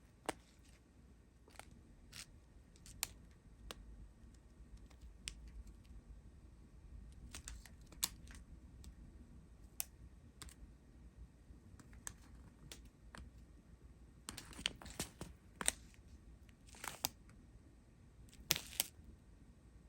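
Faint, scattered light clicks and rustles of small plastic bags of diamond painting drills being handled, growing busier near the end.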